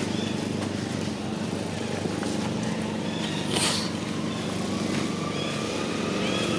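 A motor engine running steadily with a low hum, with faint short high chirps now and then and a brief hiss about three and a half seconds in.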